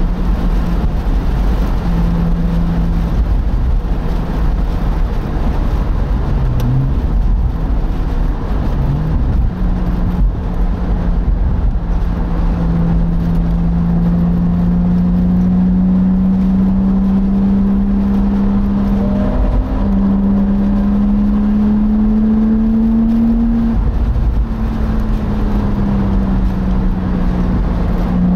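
Porsche Boxster engine under way on track, heard onboard over a steady low rumble. The note holds fairly level, then climbs steadily under acceleration, dips at a gear change about twenty seconds in, climbs again and dips at a second gear change near the end.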